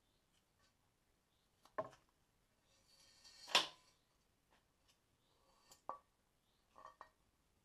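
A few separate light knocks and clicks from handling a motorcycle rocker box cover and its steel control cable, the loudest about three and a half seconds in.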